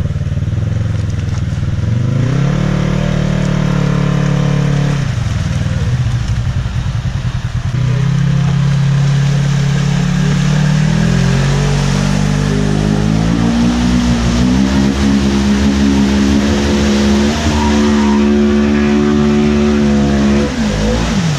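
Polaris RZR XP 1000's twin-cylinder engine revving hard as the side-by-side churns through a deep mud hole, its wheels spinning. The revs climb about two seconds in and drop back around five seconds, then climb in steps from about eight seconds until near the end.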